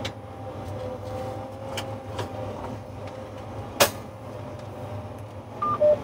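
John Deere tractor running steadily, heard from inside the cab as it drives under AutoTrac, with one sharp click a little before four seconds in. Near the end the in-cab display gives a short two-tone beep, high then low, as its 'speed control disabled' alert comes up.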